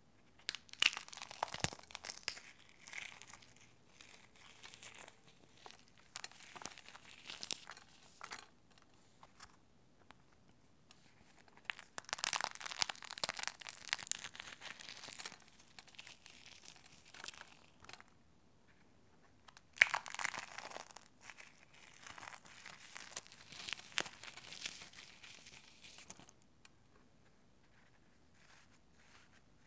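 Eggshells stuffed with dry, unsoaked floral foam being crushed by hand: shell cracking and foam crumbling in three bouts of crunching, each opening with sharp cracks.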